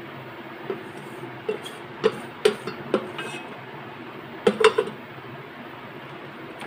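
Wooden spatula knocking and scraping against the aluminium inner pot of an electric cooker. The clacks are scattered, ending in three quick ones about four and a half seconds in, over a steady background hum.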